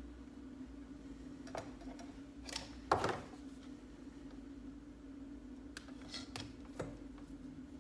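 Small lamp parts and wiring being handled: scattered light clicks and rustles, the loudest knock about three seconds in, over a steady low hum.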